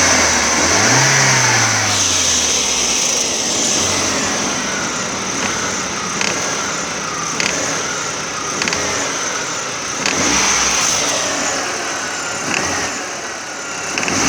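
Car engine revved up from low revs and then running, with sharp clicks every second or two: the knocking of a worn tensioner.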